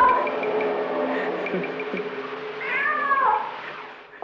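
Domestic cat meowing: a drawn-out meow right at the start and a longer meow about three seconds in that bends up and then falls in pitch, over a steady low hum that fades away near the end.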